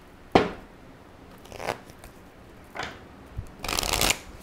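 An oracle-card deck and its box being handled on a table: a sharp knock about half a second in, a few soft scrapes, then a denser rustle near the end as the cards are slid out of the box.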